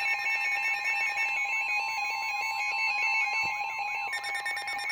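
NOAA Weather Radio receivers sounding a warning alert: a steady alarm tone near 1 kHz with pulsing electronic alarm beeps layered over it, the beep pattern changing about four seconds in.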